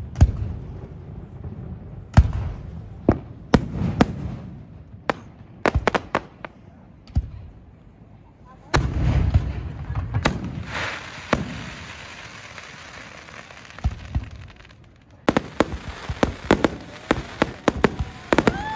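Fireworks display: aerial shells launching and bursting with sharp bangs, scattered at first. About two-thirds of the way through comes a dense, rapid run of bangs and crackles.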